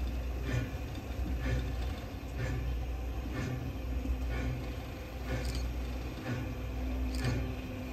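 Steam locomotive, SL Ginga's C58, standing during turntable work: a steady low rumble with a soft regular beat about once a second, and two sharper clicks near the end.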